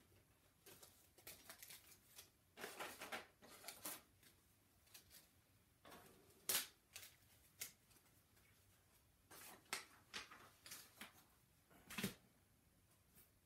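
Faint rustling and scattered clicks and knocks of things being handled on a desk, with a sharper click about six and a half seconds in and another near the end.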